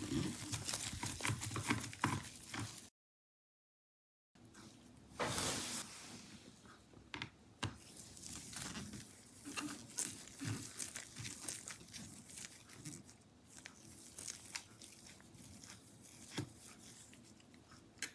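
Faint clicks and scrapes of a small screwdriver turning out the screws on a laptop's SSD shield, with the rustle of nitrile-gloved hands. The sound drops out completely for about a second and a half, about three seconds in.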